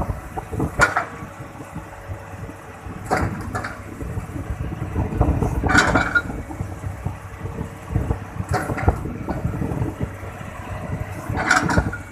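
Hitachi hydraulic excavator's diesel engine running steadily, with short sharp noises every two to three seconds.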